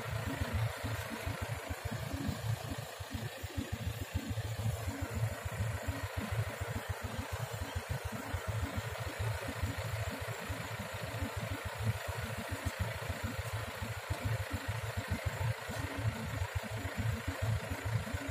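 Yanmar AW70V combine harvester's diesel engine running steadily at a constant speed, a dense low rumble, while grain is being unloaded into sacks at its outlet.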